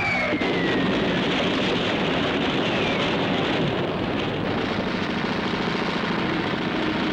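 A descending bomb whistle ending in an explosion, followed by a dense, steady roar of blast and debris noise. A second, fainter falling whistle comes about three seconds in.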